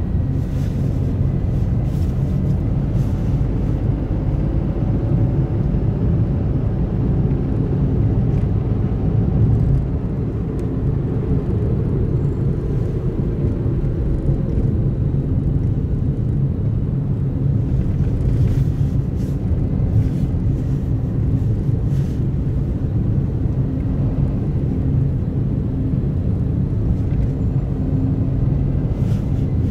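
A car driving along a highway at steady speed: a continuous low rumble of engine and tyre noise, with a few faint ticks now and then.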